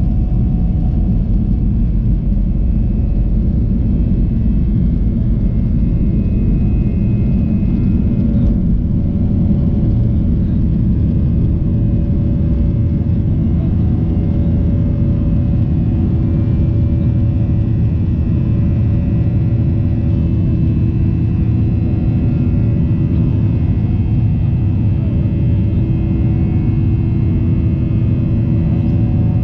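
Steady, loud rumble of a Boeing 737-900ER's CFM56-7B jet engines and airflow, heard from inside the passenger cabin, with a faint steady hum over it.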